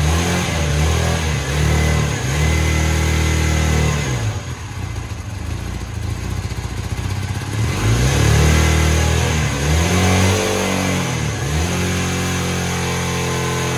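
Honda CB450T Hawk's 447 cc parallel-twin engine being blipped on the throttle, revs rising and falling a few times near the start and again later. In between it sags to a low, uneven idle for a few seconds, as if about to stall, then settles to a steady idle near the end. The owner thinks the carburetors are still out of adjustment.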